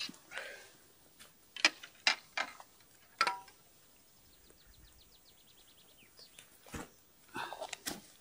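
Handling noises while a small fish is brought in on a float rod and taken off the hook: a series of separate sharp clicks and short crackles of dry reeds and grass underfoot and in hand. About halfway through, a fast even run of light ticks lasts a second and a half.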